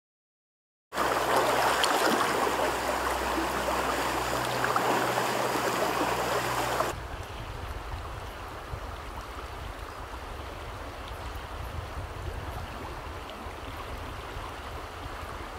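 Flowing stream water, starting abruptly about a second in and running steady. About seven seconds in it cuts to a quieter water sound with a low rumble underneath.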